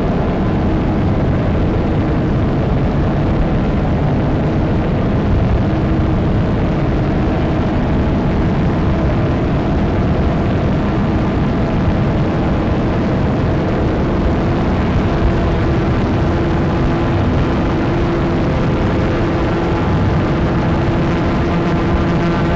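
Ambient drone made by playing a PXL-2000 camera's video cassette back as audio, nine times slower, so the video signal is heard as noise. It is run through a four-track recorder and a reverb-and-distortion pedal and comes out as a dense, steady wash heaviest in the low end, with several held tones that slowly shift.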